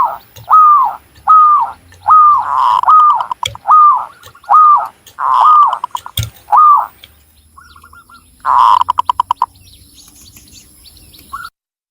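Zebra dove (perkutut) cooing: a fast series of short, arching coos, about two a second, then a brief trill and a quick rolling run of notes. A sharp click sounds about six seconds in, and the recording cuts off just before the end.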